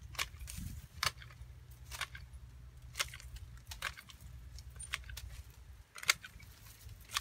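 Long-handled hedge shears snipping branches of a Kaizuka juniper: a sharp metallic snip of the closing blades roughly once a second, with a short pause about two-thirds of the way through.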